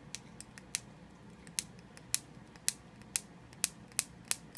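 Scissors snipping open a product's packaging: a series of sharp, separate clicks, roughly two a second.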